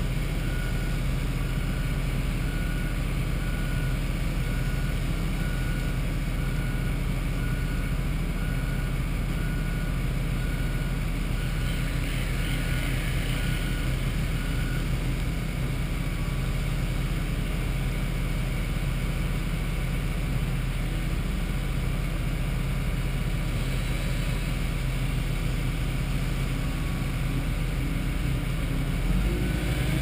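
Engine running steadily with a low drone, with a faint beep repeating about once a second through roughly the first half.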